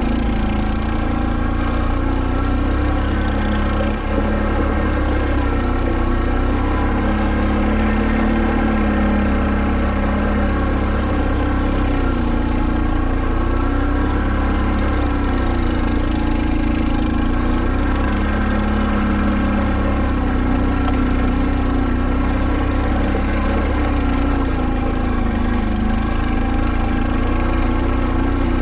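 Can-Am ATV engine running at low speed, pulling the quad up a steep, rocky trail, its pitch rising and falling as the throttle is worked.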